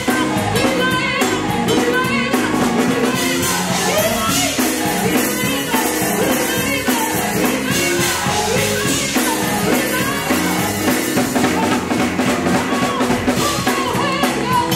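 Live gospel song: a woman singing lead into a microphone, with a group of women singing behind her, over a drum kit with cymbals and a bass guitar.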